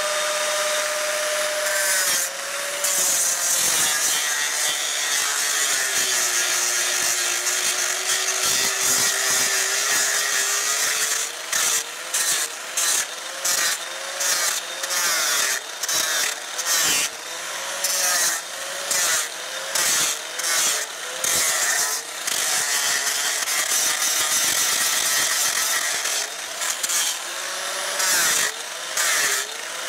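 Angle grinder with a coarse epoxy-impregnated sanding disc, running and sanding into walnut. The motor's pitch drops about two seconds in as the disc bears on the wood; through the second half the disc is pressed and eased off in quick strokes, about one a second. The disc is burning the wood more than grinding it, which the carver puts down to grit worn off its edges.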